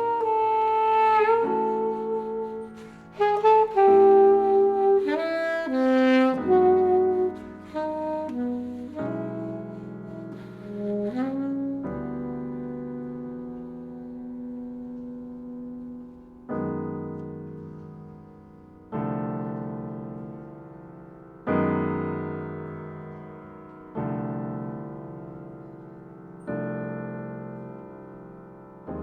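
Alto saxophone playing a melodic line with sliding pitches over piano and strings. From about twelve seconds in, sustained piano chords are struck about every two and a half seconds, each ringing and fading away.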